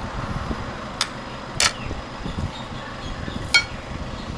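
Spoons and plates clinking at a meal table: three sharp clinks, the last one ringing briefly, over a low steady background rumble.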